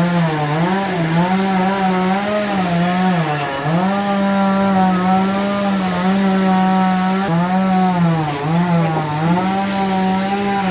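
Sawmill saw cutting through a log: a steady machine hum whose pitch sags several times as the blade bites into the wood under load, then recovers.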